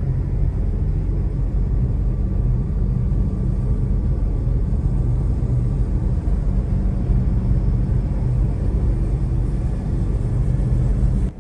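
Steady low road and engine rumble inside a moving car's cabin, which cuts off suddenly near the end.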